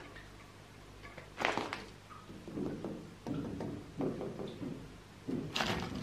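Scrapes and knocks of rusted metal as a hand works at the corroded fire-tube plugs on an old boiler's front plate. There is a sharp scrape about one and a half seconds in, then a few dull knocks, and a louder scraping clatter near the end.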